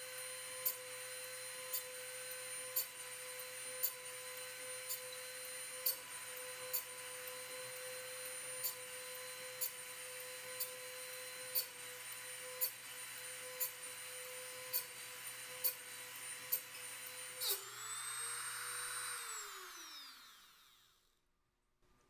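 Dremel rotary tool on a Norwood Standard Sharpener running with a steady high whine as its grinding stone sharpens the backs and gullets of a sawmill bandsaw blade's teeth, with a tick about once a second as the sharpener works from tooth to tooth. Near the end the motor is switched off and its whine falls in pitch as it spins down.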